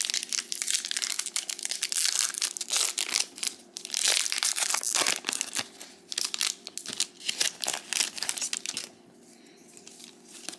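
Foil booster-pack wrapper being torn open and crinkled as the trading cards are pulled out, in many quick crackles. The crinkling stops about nine seconds in.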